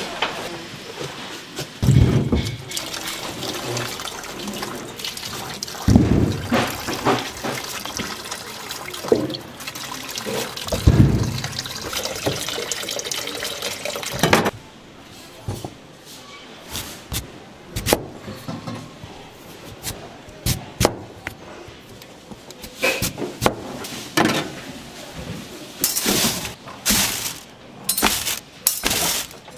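Water running and splashing steadily, with a few heavy knocks; about halfway through the water stops, leaving scattered sharp clicks and knocks of kitchen work.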